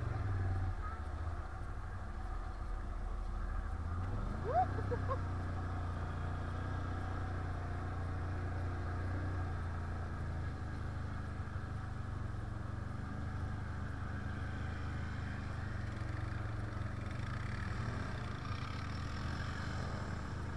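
Can-Am 1000 quad's V-twin engine running steadily at low revs, with a brief rising squeal about four and a half seconds in.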